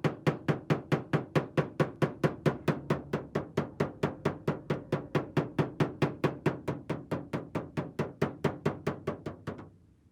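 Hammer blows on the car hood's sheet metal, struck in a steady rapid rhythm of about four to five a second, each with a short ring; the hammering stops suddenly near the end.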